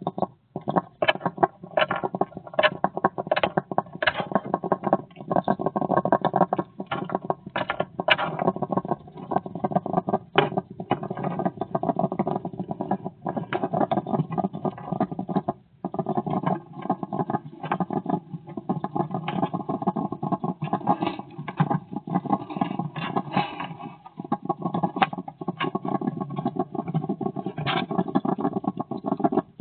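Hedgehog eating close to the microphone: irregular wet smacking and crunching chews, many a second, with short pauses.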